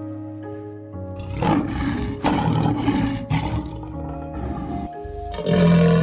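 A deep, rasping animal roar over background music. It starts about a second in and lasts about two and a half seconds, and a second, louder roar begins near the end.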